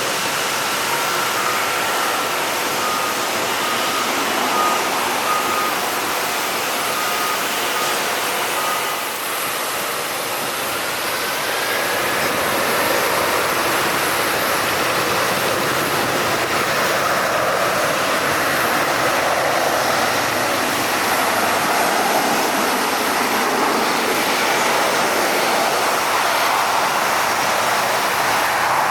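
Steady jet aircraft noise over an airport apron, with a ground vehicle's repeating beep during the first third and a faint whine rising in pitch about twelve seconds in.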